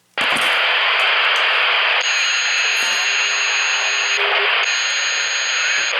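Two-way radio receiving a keyed-up transmission that carries only loud hiss-like feedback and distortion, with no audible voice: a sign of a faulty transmitting radio. A high steady whistle comes in about two seconds in, drops out briefly just after four seconds, and returns.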